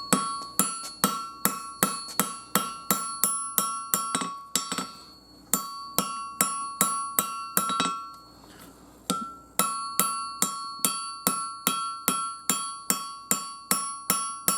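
Hammer blows on hot 5160 steel on an anvil at about three strikes a second, each strike leaving a bright metallic ring, with two short breaks in the rhythm. The steel is being drawn out and thinned at the knife's handle.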